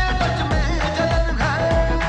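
Bollywood film dance song with a steady beat, about three bass strokes a second, under a melody.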